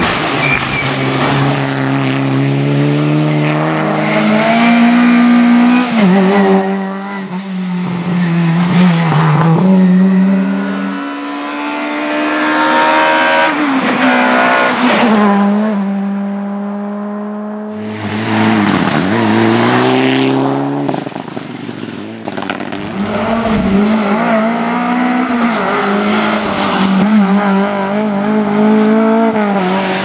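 Rally cars passing one after another at full throttle, a turbocharged four-cylinder Mitsubishi Lancer Evolution among them. Their engine notes repeatedly climb and then drop sharply at each gear change.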